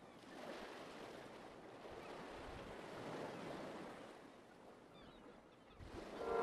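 Faint, soft wash of waves, swelling and fading. Music starts fading in near the end.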